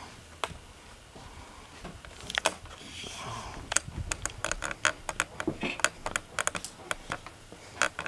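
Light, sharp clicks and taps in quick irregular succession, several a second, thickest from about four seconds in.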